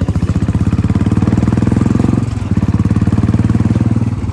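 Motorcycle engine running as the bike rides along, a quick, even pulse of exhaust beats that dips briefly about halfway through.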